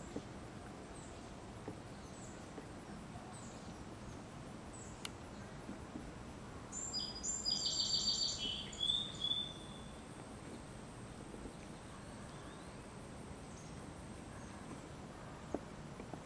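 Outdoor ambience with a steady background hiss and birds: faint short high chirps about once a second, and about seven seconds in a louder rapid trilling bird song lasting two to three seconds.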